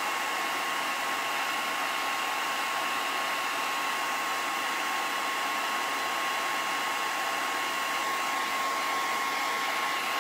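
Handheld hair dryer running steadily, blowing on a freshly inked fabric towel to dry the ink. A steady whine sits over the rush of air.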